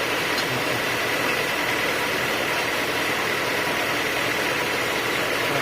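Sawmill machinery running steadily, an even mechanical drone with no cutting strokes or impacts.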